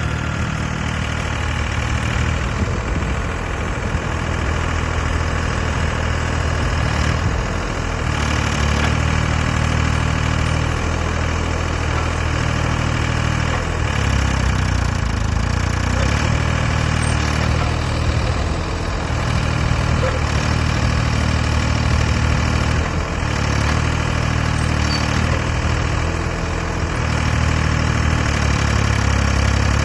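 Small diesel engine of a hydraulic crawler mini excavator running steadily at a low, even pitch, with a few brief dips in level.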